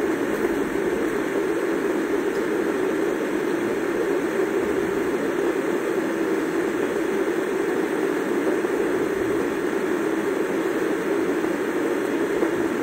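A loud, steady rushing noise with no breaks or changes, fuller in the lower middle of the range, like air from a fan or blower.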